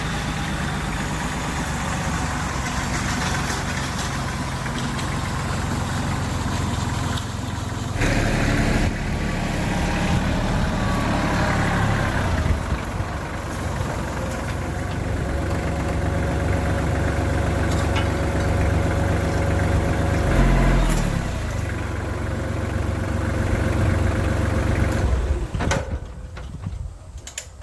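Kubota compact tractor's diesel engine running steadily while raking a gravel driveway. Its note shifts and grows louder about a third of the way in, and the engine sound dies away near the end.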